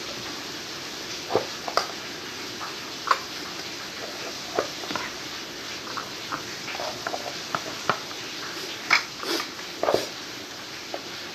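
Spoon knocking and scraping inside a metal pot as soup is scooped out: a scattering of short, irregular clicks and taps.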